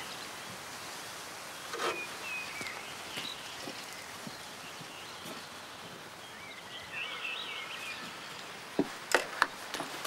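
Forest ambience: a steady outdoor hiss with birds chirping on and off, then a few sharp clicks and knocks near the end.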